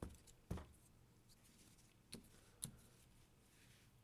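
Hard plastic toy parts clicking and tapping as they are handled and set on the toy truck: four short, light clicks.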